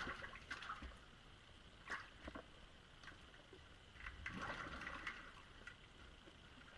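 Faint splashing and sloshing of water in a flooded cave passage as a diver moves through it into the sump: a few short splashes near the start and about two seconds in, then a longer spell of sloshing around four to five seconds in as the diver goes under.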